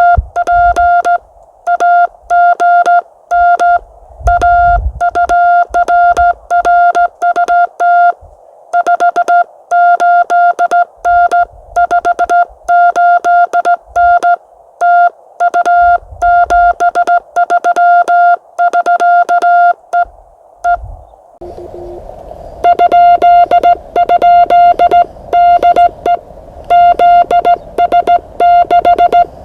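Morse code (CW) on an amateur radio transceiver: a single steady beep keyed on and off quickly in dots and dashes, with occasional low thumps. About three-quarters of the way through, receiver hiss comes up and the keyed beep continues over it, louder.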